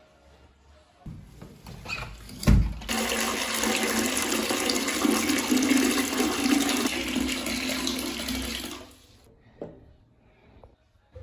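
A sharp knock, then water rushing steadily for about six seconds before it dies away.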